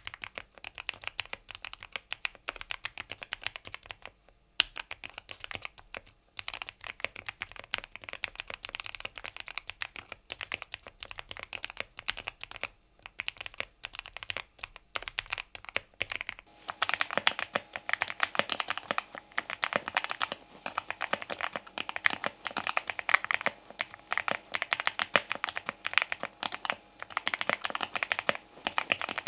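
Yunzii AL68 mechanical keyboard being typed on rapidly, a dense run of keystroke clicks with a couple of brief pauses. A little over halfway through the typing grows louder and fuller.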